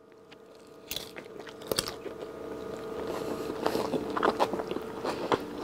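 A person chewing a mouthful of ground beef with crisp air-fried egg-white noodles, crunching from about a second in. A steady hum runs underneath.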